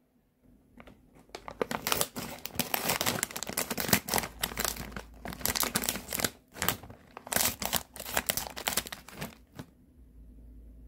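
Plastic snack bag crinkling as it is handled and cut open with scissors: a dense run of sharp crackles that starts about a second in and stops shortly before the end.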